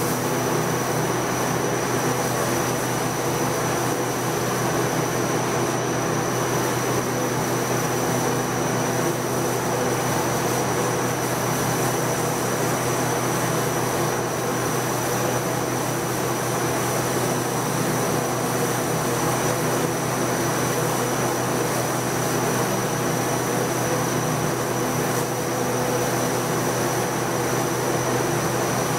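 Sandblaster in a blast cabinet: a steady hiss of compressed air and abrasive blasting a glass panel to frost it, over a steady hum.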